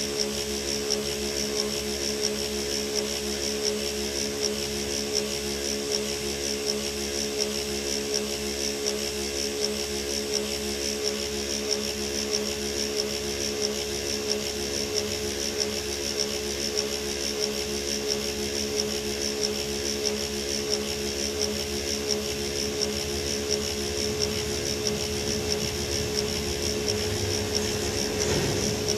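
Dump truck's diesel engine idling steadily, heard from inside the cab, with a low even pulse and a steady high whine over it. It swells slightly near the end.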